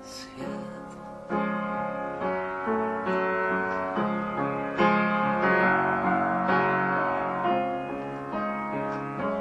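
Instrumental passage of a song: a melody of separate plucked or struck notes, about two a second, over held backing chords, following the singer's last sung word near the start.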